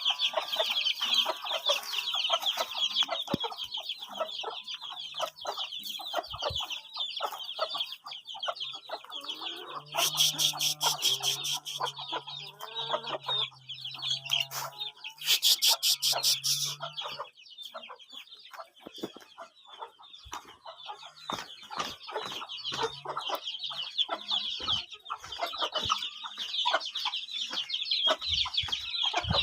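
A flock of chickens clucking and calling continuously, with many high-pitched peeps over one another. Two brief bursts of rapid rattling come about a third and about halfway through.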